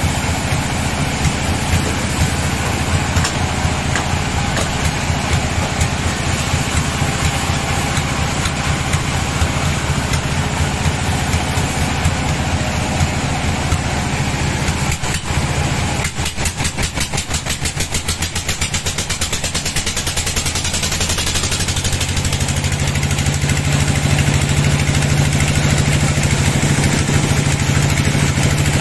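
A large vertical band sawmill running: a steady low machine drone with the band blade whirring. A fast rhythmic clatter comes in for a few seconds past the middle, then the drone grows louder and steadier toward the end as the log is brought up to the blade.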